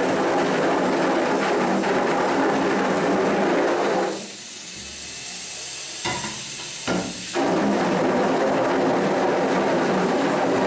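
Water jet from a handheld spray wand hissing against a screen-printing screen, washing the unexposed emulsion out of the stencil. The spray stops about four seconds in; two short knocks follow, and the spray starts again about three seconds later.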